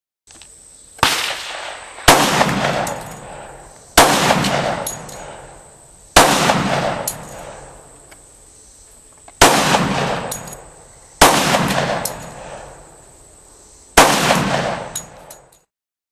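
Seven single gunshots fired one at a time at an uneven pace, a second to three seconds apart. Each sharp crack is followed by a long fading echo, and the first shot is a little quieter than the rest.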